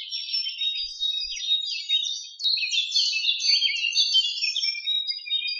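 Many small songbirds chirping and twittering together in a dense chorus of rapid, overlapping high calls.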